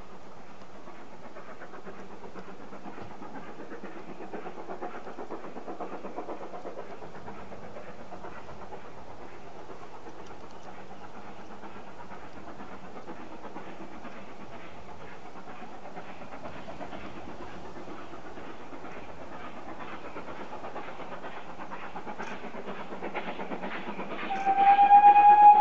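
Steam locomotive: a steady rushing noise that grows louder over the last few seconds, then the locomotive's steam whistle starts suddenly near the end, sounding one steady, loud note.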